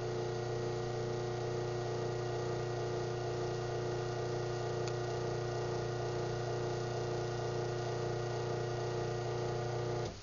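Craftsman half-horsepower chain-drive garage door opener (139.53930DM) running as it closes the door: a steady motor hum that stops abruptly near the end.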